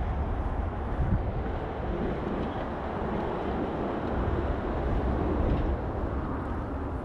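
Steady outdoor background noise with a strong low rumble that wavers in loudness, without distinct separate sounds.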